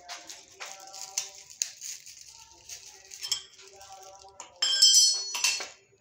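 Metal door hinge clinking and rattling as it is handled, with the loudest bright, ringing clink about four and a half seconds in, over background music.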